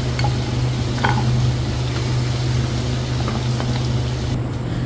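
Hot oil sizzling steadily in a wok as softened onions, green chillies and almonds are fried and lifted out, over a steady low hum, with a few faint clicks. The hiss thins out near the end.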